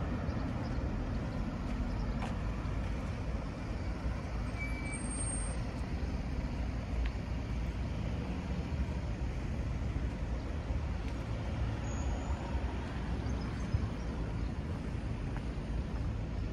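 Steady town-street noise with road traffic, a continuous low rumble without distinct events.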